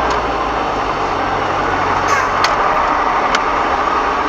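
Steady car engine and road noise heard from inside the cabin as the car creeps along in slow traffic, with a couple of brief clicks about two and three seconds in.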